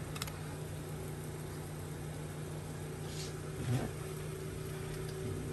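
Steady low mechanical hum, with faint clicks and slides of glossy trading cards being flipped through by hand: one click just after the start and a soft shuffle about three and a half seconds in.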